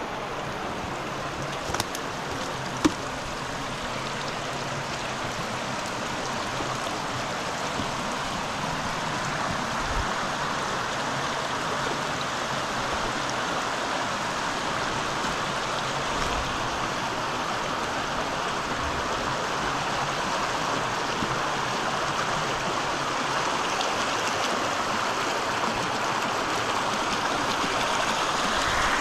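Shallow rocky brook rushing over stones, a steady water noise that grows gradually louder as the fast riffle under the bridge comes closer. Two sharp knocks about two and three seconds in.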